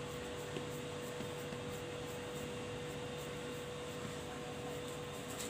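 Steady background hum with a constant mid-pitched tone and a soft hiss, like a fan or appliance running; there is a faint tap about half a second in.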